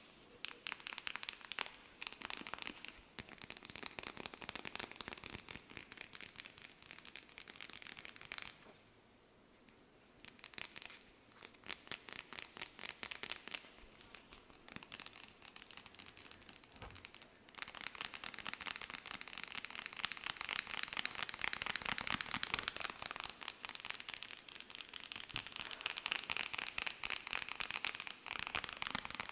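Close-miked ASMR trigger sounds: rapid, crackly tapping and scratching right at the microphone. There is a short pause about nine seconds in, and it gets louder about seventeen seconds in.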